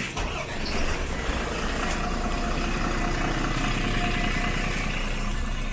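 A road vehicle running close by: a steady engine rumble with noise over it and a faint steady whine, coming in suddenly at the start.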